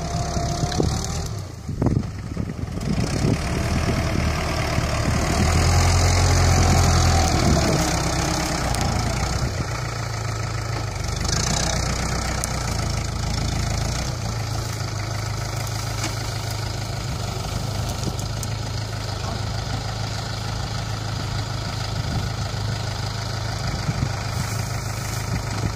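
ISEKI farm tractor's diesel engine running steadily while it drags a loaded cassava rack through soft field soil, louder for a few seconds early in the stretch and then settling to a steady hum.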